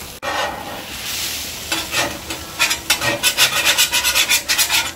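Metal spatula scraping and chopping hash browns on a steel flat-top griddle, with the potatoes sizzling. About two and a half seconds in, it breaks into a fast run of scraping strokes, several a second.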